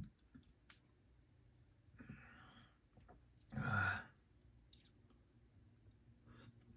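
A person breathing: a soft breath about two seconds in, then a louder sigh lasting about half a second, with a few faint clicks.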